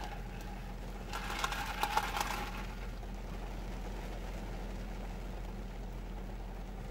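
Steady low hum of a car idling, heard inside the cabin. About a second in, a short burst of eating sounds with clicks lasts about a second and a half.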